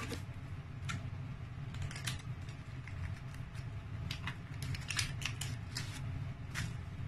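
Paperboard packaging being handled: a run of scrapes, taps and rustles, thickest from about four to six seconds in, as a tightly packed makeup palette is worked out of its box, over a steady low hum.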